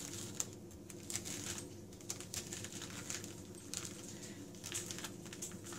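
Metal spoon scraping and scooping the seeds and stringy pulp out of a halved raw spaghetti squash: a run of soft, irregular scrapes and taps.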